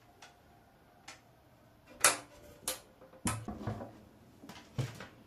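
Handling noise: a few separate sharp clicks and light knocks, the loudest about two seconds in, then several more spread over the following three seconds.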